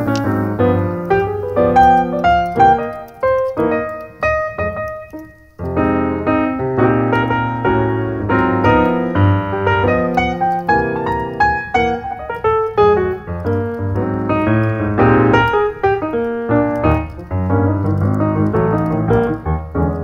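Piano music, a continuous run of notes with a brief break about five and a half seconds in.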